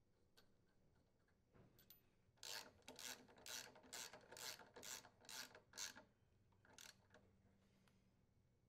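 A ratchet driving in the bolt that secures the snowblower's auger pulley: about eight short, faint rasping strokes, roughly two a second, then one more after a short pause.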